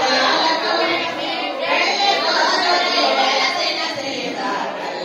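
Several high voices singing together, their overlapping lines at a steady level.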